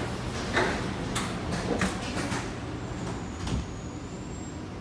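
Kawasaki C751B metro train's sliding passenger doors shutting: a run of clunks and knocks over the first two and a half seconds, over the steady low hum of the car. A faint high whine comes in about three seconds in.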